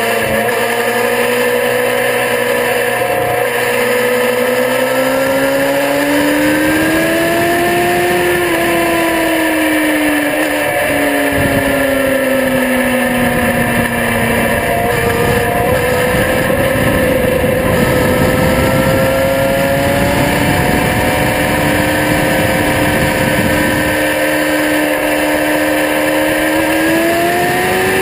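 Sport motorcycle engine at speed, heard from on board. Its note climbs over the first several seconds, eases off until about halfway, holds steady, then rises again near the end, under heavy wind rush on the microphone.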